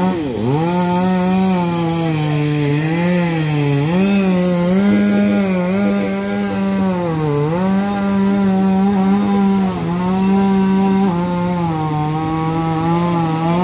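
Chainsaw running continuously while cutting through the trunk of a dead tree. Its pitch wavers, dipping and recovering several times, most deeply about seven seconds in.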